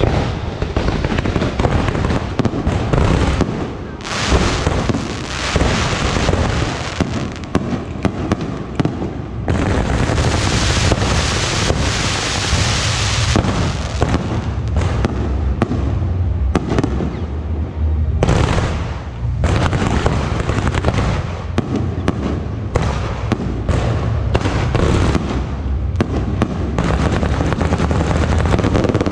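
Continuous barrage of fireworks: rapid launches, bangs and crackling bursts one after another. A hissing crackle is densest about ten to thirteen seconds in.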